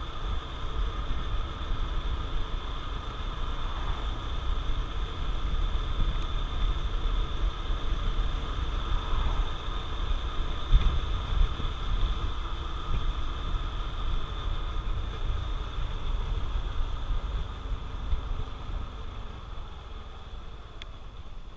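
Honda CT125 Trail 125's single-cylinder four-stroke engine running while riding, with wind rumbling on the microphone and a steady high whine throughout. The level eases off over the last few seconds.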